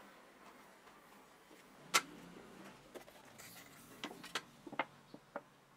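Small workbench handling sounds: one sharp knock about two seconds in, then a few light ticks and a quick run of clicks as a cardboard box is handled over a stainless steel tray holding the drill's gearbox housing.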